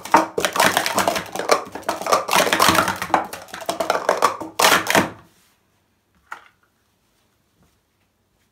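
Plastic sport-stacking cups (Speed Stacks) clattering fast as they are upstacked and downstacked on a StackMat: a dense run of clicks and knocks that stops about five seconds in, followed a second later by one short tap.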